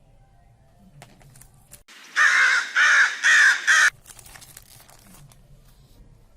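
A crow cawing four times in quick succession, about two seconds in.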